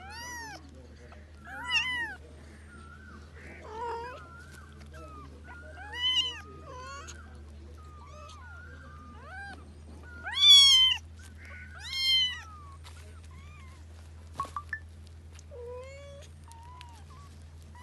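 A mother cat and her young kittens meowing and mewing in turn, about a dozen short arched calls, the loudest about two-thirds of the way through; the mother is calling over a kitten that is being lifted away from her. A few quick ticks sound near the end.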